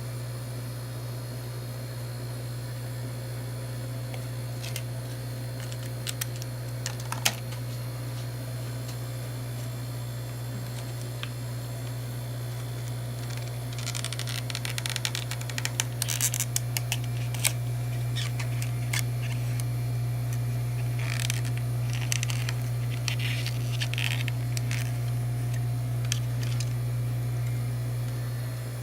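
Steady low hum with scattered small clicks, then two stretches of scratchy clicking and scraping about halfway in and again later: hand tools working on a phone during a screen repair.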